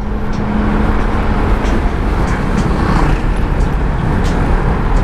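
Motor scooter riding along a road: a steady, loud rush of engine, road and wind noise.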